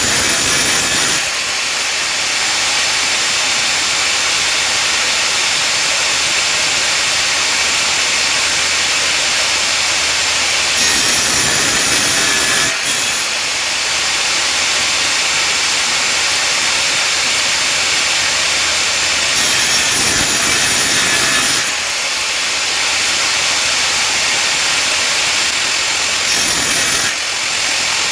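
Power saw cutting wood, a loud steady cutting noise that changes in character every eight to ten seconds.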